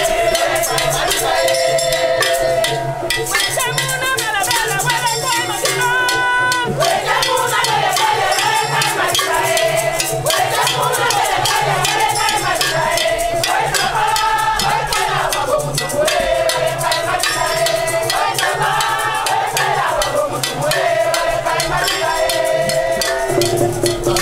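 Music: voices singing together over shaken rattles, with a steady low bass beneath.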